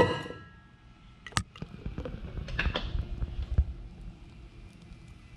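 A metal cup set down with a ringing clink, a sharp click a little over a second later, then a frothy coffee drink poured from a pitcher into a stainless steel tumbler, a low, gurgling pour for a couple of seconds in the middle.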